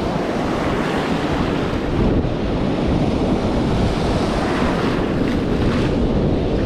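Ocean surf breaking and washing up the beach in a steady rush, swelling a little about two seconds in, with wind buffeting the microphone.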